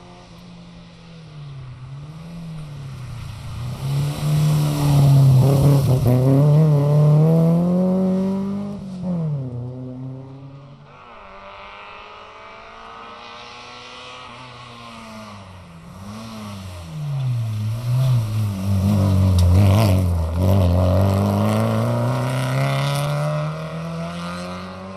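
Two rally cars passing at speed, one after the other. Each engine revs hard, with quick rises and drops in pitch as the driver changes gear and lifts off the throttle. The first car is loudest about five seconds in, the second about twenty seconds in.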